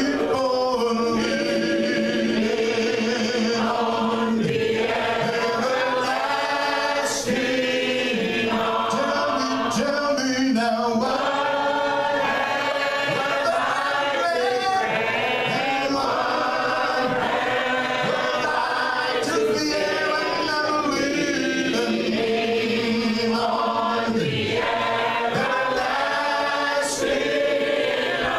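Group of voices singing a hymn together a cappella, without instruments, led by a man singing into a handheld microphone, in continuous phrases.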